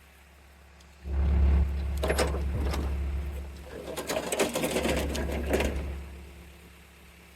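A small motorised tool running with a rapid mechanical chatter over a low hum. It starts suddenly about a second in, eases briefly partway through, then picks up again and stops near the end.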